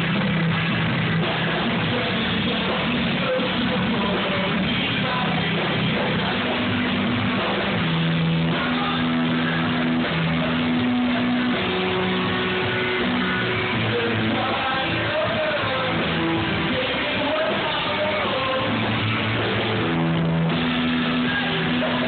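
Rock band playing live: electric guitars, bass, drums and a keyboard, with a voice singing over steady bass notes that change every second or so.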